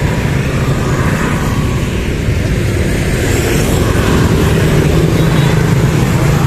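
Street traffic noise: a motor vehicle's engine droning low and steady, growing a little louder about four seconds in.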